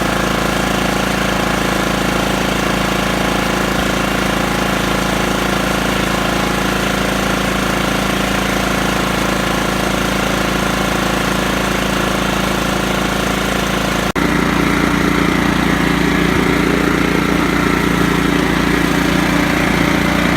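Kohler Command CV14 14 hp engine on a riding mower running steadily at speed, with no surging or stumbling, its Walbro carburettor's passages freshly cleared. About two-thirds of the way through it cuts abruptly to a slightly louder run with a different pitch.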